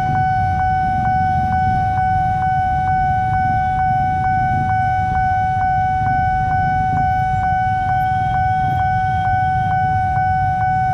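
Railway level-crossing warning bell ringing steadily, about three strokes a second, over the low rumble of idling motorcycle engines.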